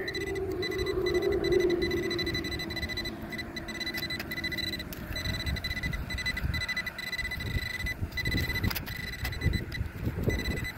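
Steel hand digger scraping and knocking through loose, clumpy field soil while searching the hole for a metal detector target. A low electronic tone fades out over the first few seconds, and a faint steady high electronic tone runs underneath.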